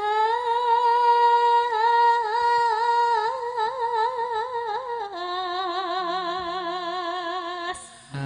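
A Javanese sinden singing solo without accompaniment: one long held high note with slight wavering ornaments, stepping down about five seconds in to a lower held note that breaks off near the end.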